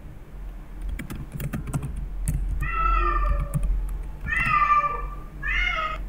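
Computer keyboard keys clicking as a word is typed, then a cat meowing three times, each high call under a second long, the last near the end.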